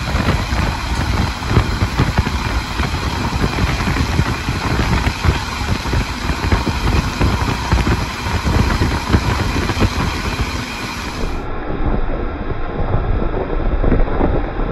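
A train running along the track, heard from on board: a steady low rumble with a continuous dense rattle of wheels on rails.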